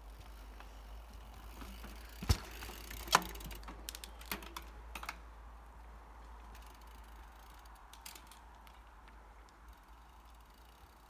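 Specialized Enduro mountain bike riding over a dirt trail: two sharp knocks a little under a second apart as it hits the ground, then a short run of light clicks and rattles, fading as it rides away.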